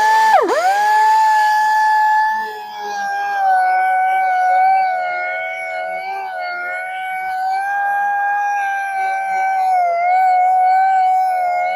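A high-speed power tool starts up and runs with a steady high whine. Its pitch dips and recovers shortly after the start, then wavers slightly as it works.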